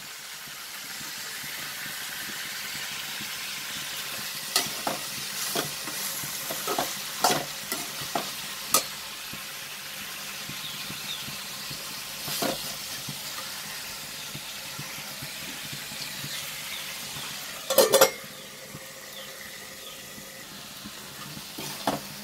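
Sliced onions and tomatoes sizzling in oil in an aluminium kadai while being stirred, the metal spoon scraping and clicking against the pan. A louder clatter of knocks comes late on.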